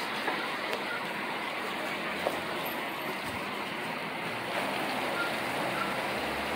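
Steady hiss of rain falling over the city, with a few faint ticks.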